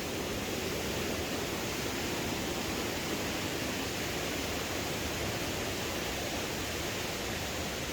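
Mountain river rushing over rocks: a steady, even rush of water.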